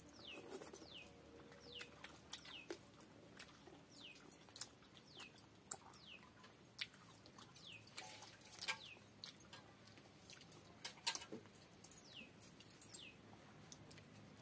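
Faint mouth sounds of eating rice and fish curry by hand: scattered wet clicks and smacks. Behind them a small bird gives short high chirps, each falling in pitch, often in pairs.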